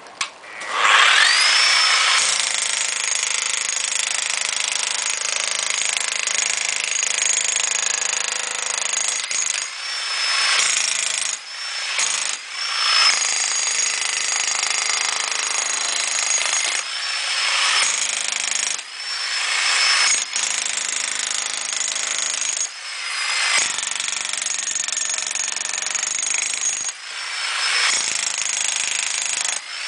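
Bosch GSH 11 VC electric demolition hammer chiselling plaster off a brick wall. The motor whine rises as it starts about half a second in, then hammering runs in long stretches broken by several brief pauses.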